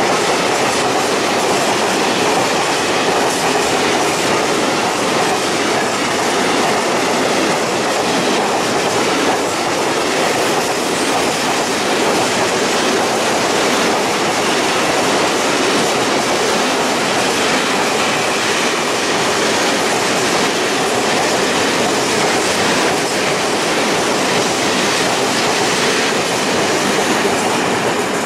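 Freight train of open coal wagons rolling past: a steady loud rumble of steel wheels on rail with a continuous clatter of wheels over the rail joints.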